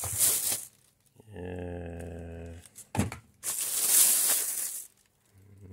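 A plastic shopping bag rustling and crinkling as a hand rummages through it, loudest from about three and a half to five seconds in, with a click just before. Twice a low steady hum from a man, each about a second long.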